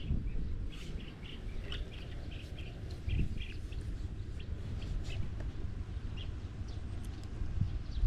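Small birds chirping: many short, high chirps in quick succession, thinning out in the second half, over a steady low rumble.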